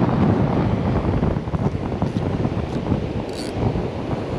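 Strong wind buffeting the microphone in gusts, with surf washing on the beach behind it and a few light clicks.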